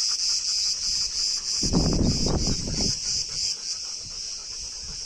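A chorus of insects making a high pulsing buzz, about four or five pulses a second, that turns steady near the end. About two seconds in, a low rumbling noise lasts about a second.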